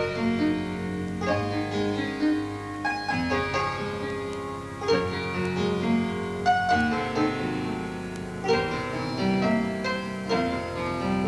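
Instrumental music led by keyboard, with a bass line that moves to a new note every second or two.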